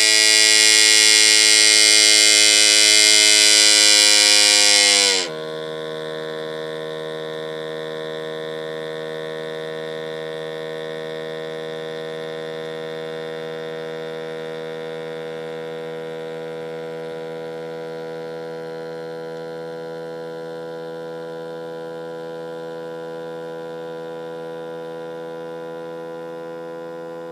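Strange steady electric-sounding buzz from a Ford 6.7 Power Stroke diesel, loud and harsh for about five seconds. It then suddenly drops to a quieter, lower steady hum that carries on.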